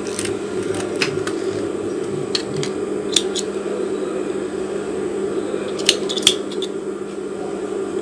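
Small scissors snipping thread and pompom trim: a scattered series of short, sharp clicks, the loudest two about six seconds in, over a steady low hum.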